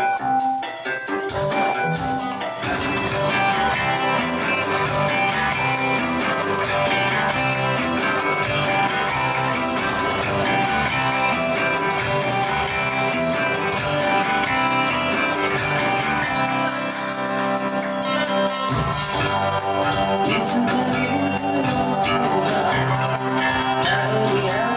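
A live band playing, with electric guitar and electric bass; the low end fills out about nineteen seconds in.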